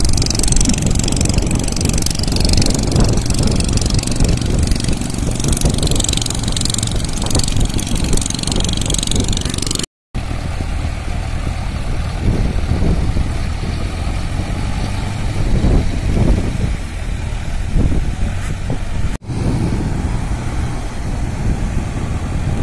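Mahindra 605 DI 4WD tractor's diesel engine running steadily as it works the boat on the beach, with a strong hiss of surf and wind in the first half. The sound breaks off for a moment twice, about ten seconds in and near the end.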